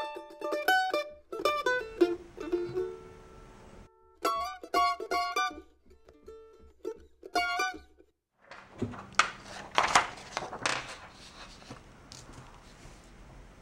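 Plucked-string instrumental music, in short phrases with pauses, stops about eight seconds in. Then comes a few seconds of scratchy rustling and scraping of a sheet of drawing paper being handled and shifted on the table.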